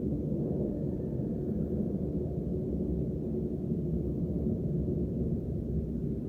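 Lockheed C-5M Super Galaxy's four General Electric CF6-80C2 (F138) turbofan engines at takeoff power. The sound is a steady, deep rumble.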